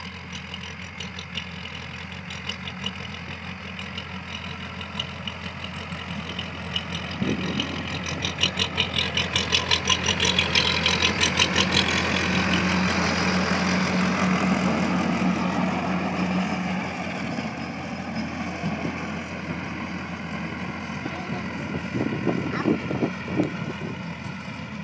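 Powertrac Euro 55 tractor's diesel engine running under load as it pulls a rotary tiller through the soil, a steady drone. It grows louder and takes on a fast, even pulsing partway through, then eases off again.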